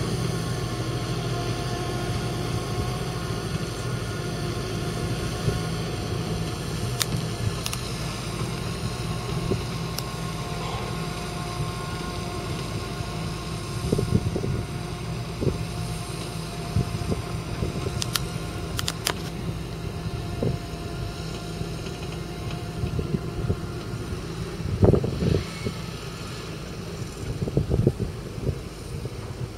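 Fendt 927 Vario tractor's 7.8-litre six-cylinder turbocharged diesel running steadily as it drives along pulling a loaded water tanker, with a few sharp clicks.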